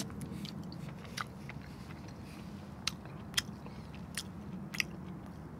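A person chewing a mouthful of firm, crisp strands from seafood congee, which he guesses are sliced jellyfish: a handful of faint, sharp, crunchy clicks from the mouth, spread over several seconds, over a low steady background hum.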